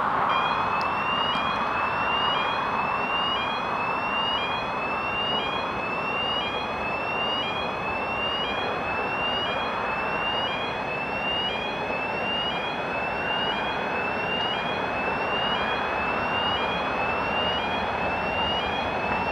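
A level crossing warning signal sounds a short rising electronic tone that repeats about every 1.2 seconds. Under it is the steady noise of an approaching TEM2 diesel shunting locomotive hauling loaded freight wagons.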